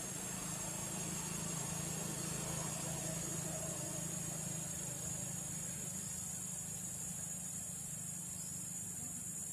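Steady background hum, like a distant engine running, with a constant high-pitched hiss above it.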